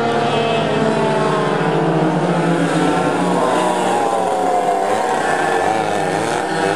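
Several vintage racing go-kart engines running hard, their pitches rising and falling as the karts accelerate, brake and pass. One engine's pitch dips and climbs back about four to six seconds in.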